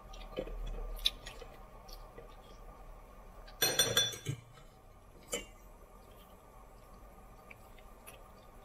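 Metal fork clinking against a dish: a short cluster of sharp clinks about three and a half to four seconds in and a single tap a second later, with faint small clicks in between.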